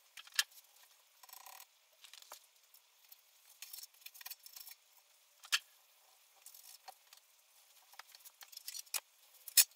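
A cloth rubbing over a bare pressed-steel wheel-arch panel as it is wiped down with panel wipe solvent: faint rubbing, with a few sharp clicks and taps of hands and cloth against the metal.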